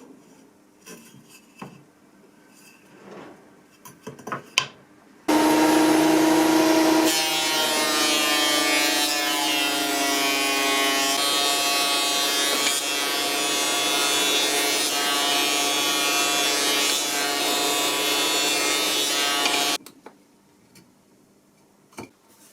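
A power saw cutting wood. It comes in suddenly about five seconds in, its pitch sags as the blade takes the cut and then holds steady, and it cuts off abruptly near the end. Before it there are only faint clicks and knocks.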